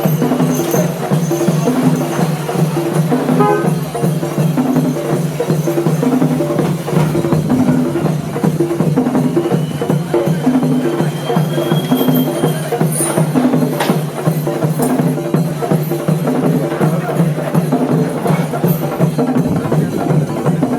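Kerala temple percussion ensemble of chenda drums with cymbals playing a fast, steady rhythm over a held low tone.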